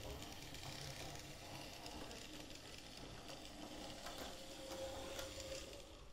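OO gauge model locomotive running along the track, its small electric motor and gears whirring with light clicks from the wheels, cutting off right at the end.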